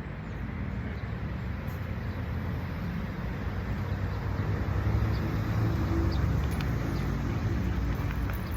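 A motor vehicle's engine running, growing louder about halfway through and then easing off, over a steady background hum of road traffic.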